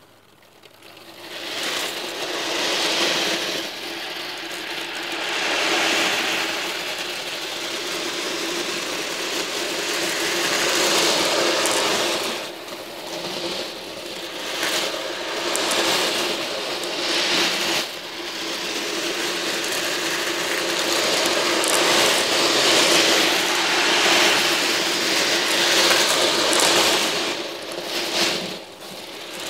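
Some two thousand small steel balls rattling and clattering against one another as their tray is shaken, over a steady mechanical hum. The rattle builds up in the first couple of seconds, swells and eases every few seconds, and drops briefly near the end.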